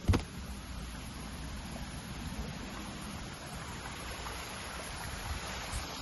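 Steady low rumble and hiss from a handheld camera's microphone moving through foliage, with one sharp handling knock just after the start.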